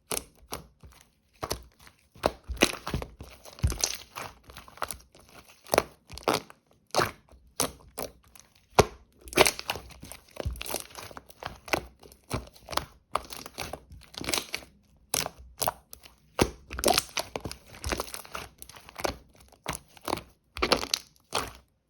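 Milky white slime being squished and stretched by hand, giving irregular sticky pops and crackles in short runs.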